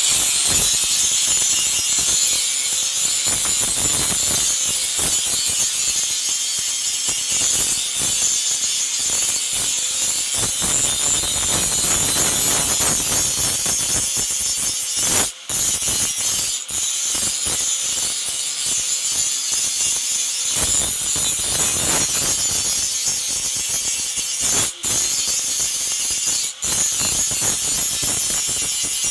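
Continuous harsh scraping and grinding noise of hand-tool or abrasive work on material, dense with small clicks, breaking off for a moment three times.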